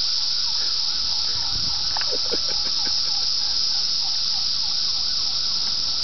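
Chorus of Brood X 17-year periodical cicadas: a loud, steady, high-pitched whine with a fainter wavering call repeating several times a second beneath it, the sound likened to a flying saucer.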